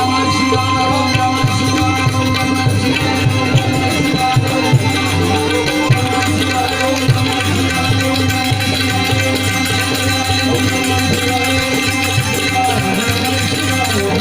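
Instrumental passage of Indian devotional folk music: tabla playing a rhythm under steady held melodic tones.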